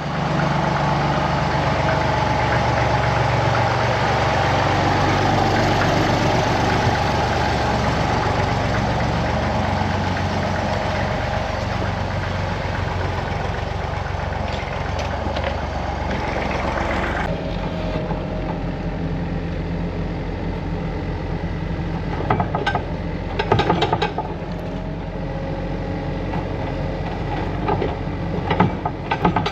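An engine running steadily with a low rumble; its sound changes about seventeen seconds in, and a few knocks come near the end.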